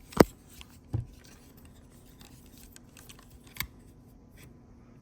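Metal pick tool clicking and scraping in the release hole of a plastic connector on an ignition lock housing: a sharp loud click just after the start, a softer one about a second in, and another near the end, with light scraping between.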